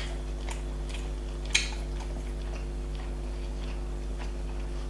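Close-up chewing and biting of food, with scattered small wet mouth clicks and one sharper click about a second and a half in, over a steady low electrical hum.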